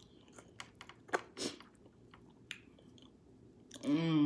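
Close-miked mouth sounds of a person eating: chewing with scattered wet smacks and clicks, the loudest about one and a half seconds in. Near the end comes a short voiced sound with no words.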